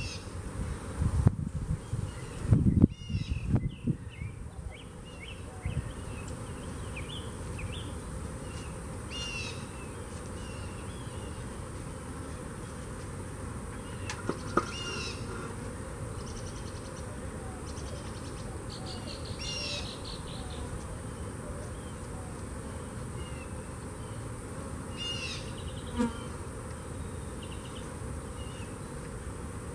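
Honeybees buzzing around an open hive, a steady drone throughout. A few heavy low thumps in the first few seconds as concrete blocks are handled, and a bird calling with a short repeated call about every five seconds.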